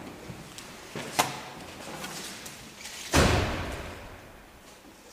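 Car door latch clicking open, then the door slammed shut a little after three seconds in, the bang echoing and fading in an underground parking garage.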